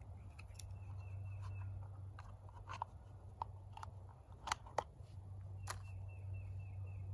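Small hard-plastic clicks and taps as the GasOne backpacking stove's orange plastic carrying case is opened and the metal stove is handled out of it. Two sharper clicks come about four and a half seconds in.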